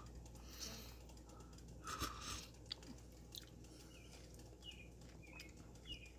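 Faint chewing and lip-smacking as a man tastes gumbo off a wooden spoon, with small clicks and wet mouth sounds.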